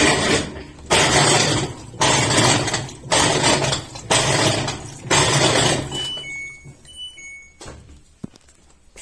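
LG washing machine running a test cycle with a newly replaced transmission: loud swishing strokes about once a second as the wash action turns back and forth. The strokes stop about six seconds in, and a few short electronic beeps from the control panel follow.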